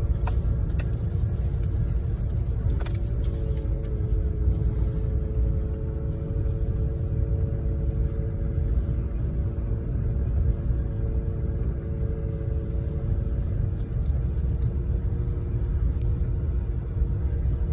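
Vehicle interior on the move over a packed-snow dirt road: a steady low rumble of tyres and road, with an even engine and drivetrain hum.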